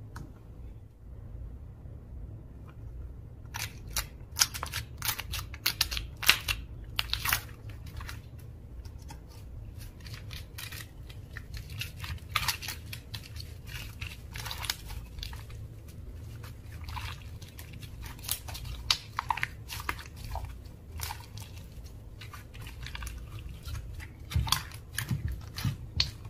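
Slime being kneaded and squeezed by hand, with irregular wet crackles and pops that begin a few seconds in and come thick and fast.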